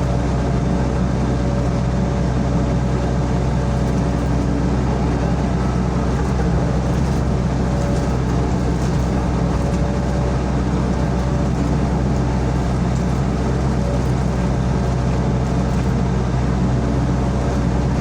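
Diesel engine of a Sany SY55C mini excavator running steadily under work, a constant loud drone.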